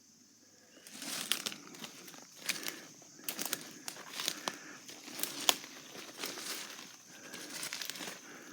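Irregular crinkling and crackling rustle that starts about a second in, over a faint steady high trill of crickets.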